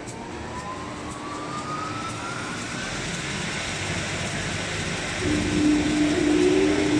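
Wide-belt sanding machine (MTOOLS MTWBS1300R-R) starting up: one motor spins up with a rising whine, and the machine's running noise builds steadily. About five seconds in, another motor switches on, adding a louder steady hum and a second rising whine.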